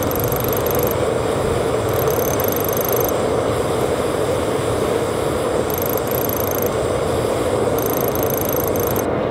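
Steady roar of a gas forge's burners running, with no hammer blows.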